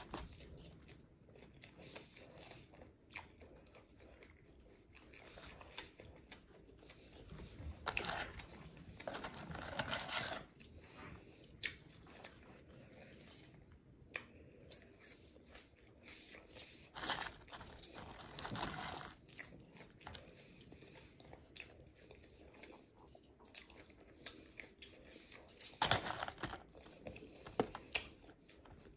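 Close-up eating sounds: a person biting and chewing a Big Mac and McDonald's french fries, many short mouth clicks with a few louder bites scattered through.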